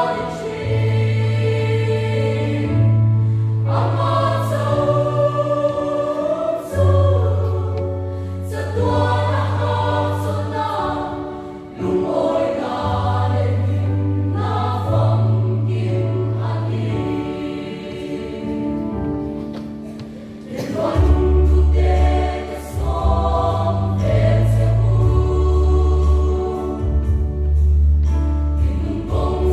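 Mixed choir of women and men singing a Mizo gospel hymn in parts, over steady low bass notes that change every second or two. The singing grows fuller and louder about two-thirds of the way through.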